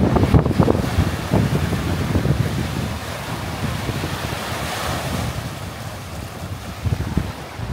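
Wind buffeting the microphone, heaviest in the first second and then easing, over the steady wash of sea waves on a beach, with a swell of surf hiss about halfway through.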